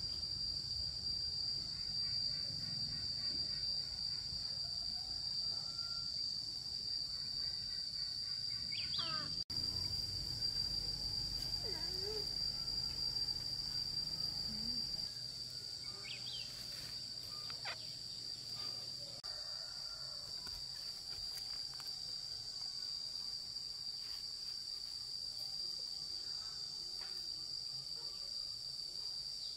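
Insects droning in one steady high note without a break, with a few short chirps and calls over it.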